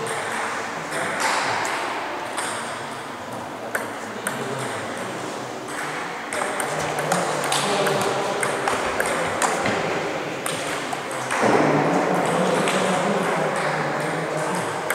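Table tennis balls clicking sharply and irregularly off bats and table tops, the strokes of rallies at this table and at neighbouring tables.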